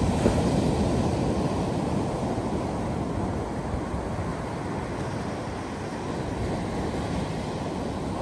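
Ocean surf: small waves breaking and washing up a sandy beach, a steady rush that is loudest in about the first second and then evens out.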